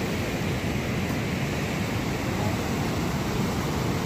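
Steady rushing noise of Niagara Falls and the rapids pouring over its brink, an even, unbroken roar of water.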